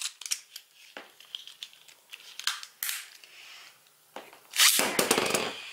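Plastic clicks of a Beyblade top being fitted to its launcher. Then the ripcord is pulled to launch it, a loud ripping burst about a second long near the end, and the top starts spinning in the plastic stadium.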